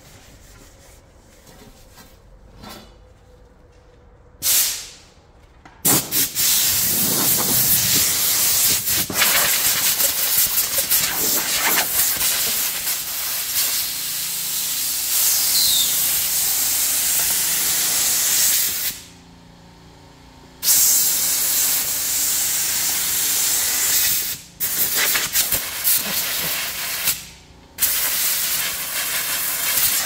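Loud, steady hissing, after a short puff about four seconds in; it starts about six seconds in, stops for a couple of seconds about two-thirds of the way through, and breaks off briefly twice more near the end.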